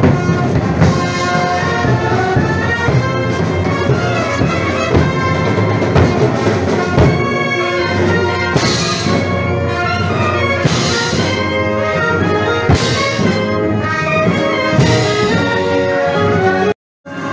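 Marching brass band playing in the street: tubas, horns and saxophones over snare and bass drums, with cymbal crashes about every two seconds in the second half. The sound breaks off briefly near the end.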